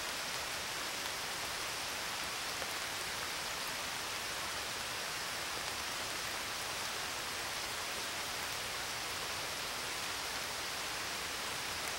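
Steady rain-like hiss: an even wash of noise that does not change.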